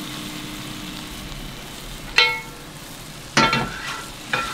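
Meat sizzling steadily in a hot pan. About two seconds in comes a sharp, ringing clink of a metal utensil against cookware, and two more follow near the end.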